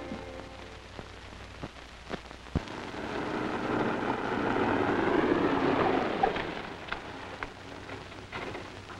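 A wood-bodied station wagon driving along a dirt road: the noise of its engine and tyres swells as it approaches, peaks about halfway through, and fades as it passes. A few sharp clicks and pops sound along the way.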